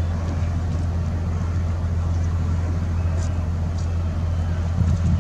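Engine running steadily, an even low rumble with no change in speed, under faint clatter and distant voices from the unloading.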